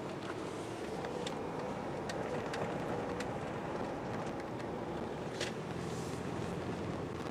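A vehicle driving on the road: steady engine and road noise, with scattered clicks and rattles, the sharpest about five and a half seconds in.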